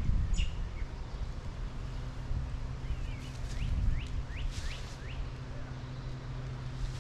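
Wind rumbling on the microphone over a steady low hum, with several short chirping bird calls between about three and five seconds in.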